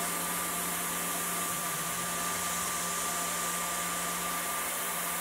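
Tormach CNC mill spindle running at high speed while a small end mill cuts an aluminium wheel hub: a steady whine over a steady hiss.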